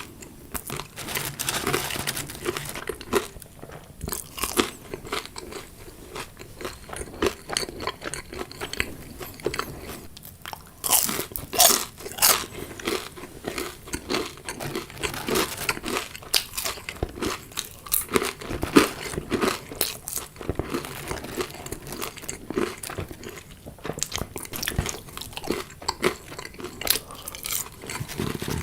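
Close-up chewing and biting of crunchy fried food: a dense run of crisp crunches, with a loudest cluster of bites about a third of the way in.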